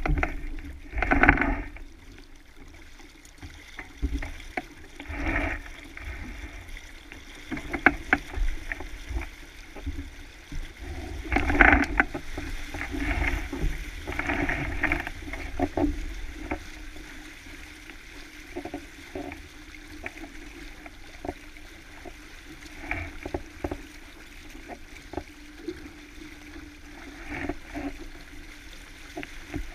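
Racing sailboat under way: water rushing and slapping along the hull, with irregular louder splashes or knocks, heaviest in the first half and calmer later.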